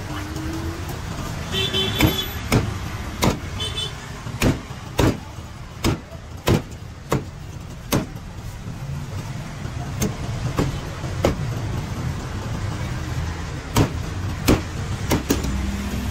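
Heavy cleaver chopping grilled pork feet through skin and bone on a thick wooden block: about sixteen sharp chops in uneven runs, with a pause of a couple of seconds past the middle, over a steady low rumble.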